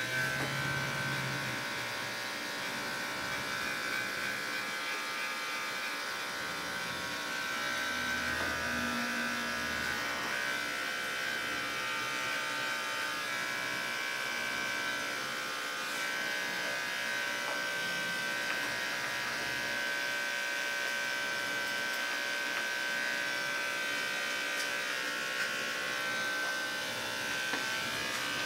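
Andis Endurance detachable-blade dog clipper fitted with a #40 blade, running with a steady electric buzz as it clips a dog's coat.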